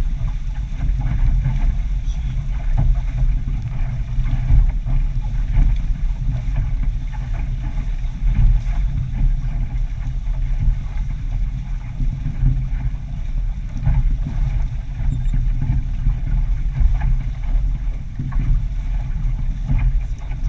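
Wind buffeting a GoPro camera's microphone on a sailboat under way: a steady low rumble that wavers up and down, with a faint hiss above it.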